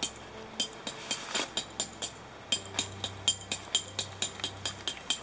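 A quick, uneven string of light, sharp metallic clicks or clinks, about three or four a second, each with a short high ring. A low hum comes in about halfway through and stops near the end.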